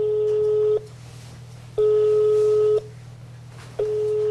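Telephone call-progress tone heard from a mobile phone: beeps of one steady pitch, each about a second long and about a second apart, three in all, over a steady low hum.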